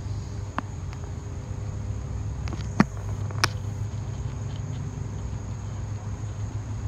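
Insects chirring in a steady high-pitched drone over a low, steady rumble, with a couple of sharp clicks a little before halfway through.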